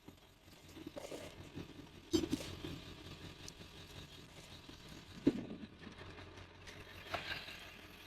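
Scrap metal being handled and worked by hand: irregular scraping and clatter with two sharper knocks, about two seconds in and about five seconds in.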